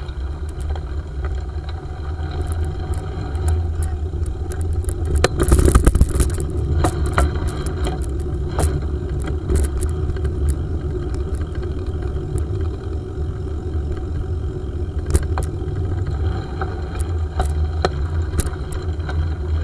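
A bicycle riding along a path, heard through a handlebar-mounted camera: a steady low rumble with scattered rattles and clicks from the bike and mount over bumps, and a louder jolt about six seconds in.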